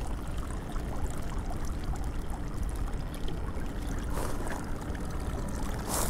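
Water pouring and trickling as a bait bucket's water is partly changed at the river's edge. Two brief louder sloshes come in the second half.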